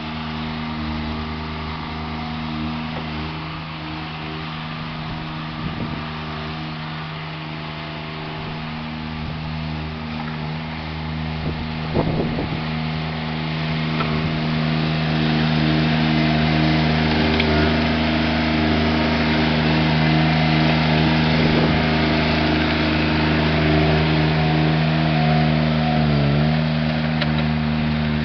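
Mini skid steer's small engine running steadily while pushing snow, getting louder from about halfway in, with a sharp knock about twelve seconds in and a brief dip in engine pitch near the end.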